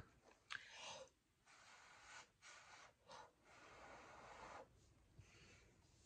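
Faint, soft puffs of breath from a person leaning close over the work, a series of short airy hisses with brief pauses between them.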